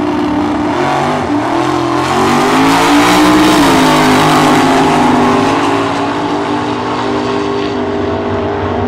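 A pair of drag cars launching off the line at full throttle and accelerating down the strip. The engine note climbs, is loudest about three seconds in and falls about three and a half seconds in, then runs on steadily and a little quieter.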